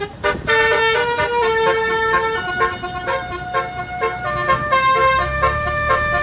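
Bus telolet horn playing a tune of held, multi-tone notes that step to a new pitch every second or so. A low rumble builds about five seconds in.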